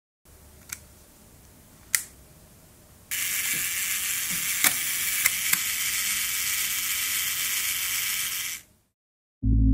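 Leica M3's clockwork self-timer: two clicks as the lever is set, then the escapement buzzes steadily for about five and a half seconds with a few ticks in it, and fades out as the lever runs back down.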